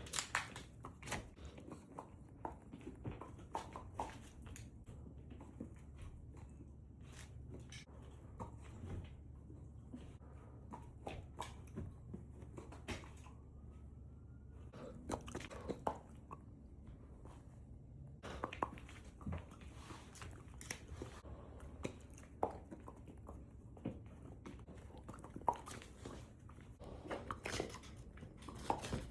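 Chewing: irregular wet chomps and sharp smacking pops, some sounding like a bubble popping.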